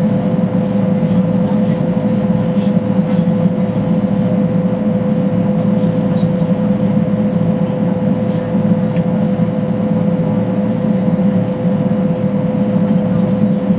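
Boeing Jetfoil 929-115's gas turbines and waterjet propulsion heard inside the passenger cabin: a steady, even drone with a deep rumble and a constant mid-pitched hum over it.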